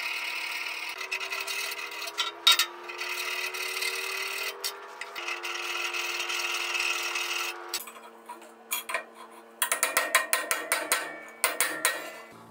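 A hand file rasping at the small bead of weld that holds a stainless steel nut to an exhaust tab, in long strokes with short breaks. From about two-thirds of the way through, a quick run of sharp metal taps from a ball-peen hammer on the nut, knocking it loose.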